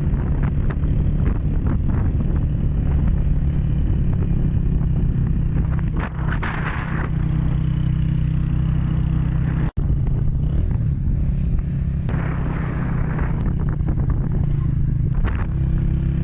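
A vehicle engine running steadily, with road noise, while climbing a mountain road. The sound cuts out for an instant about ten seconds in.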